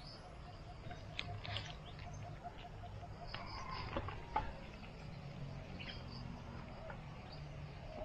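Quiet outdoor ambience of animal calls: a fast, even trill of pulses for the first few seconds and repeated short high chirps, with a few faint clicks.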